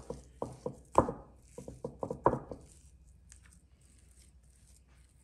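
Hand slapping and pressing wet ground-meat mixture on a wooden cutting board: about ten quick, soft thumps over the first two and a half seconds, the loudest about a second in, then only faint handling sounds.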